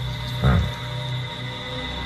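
Suspenseful soundtrack music with sustained tones. About half a second in, a single short, low animal grunt sounds over it.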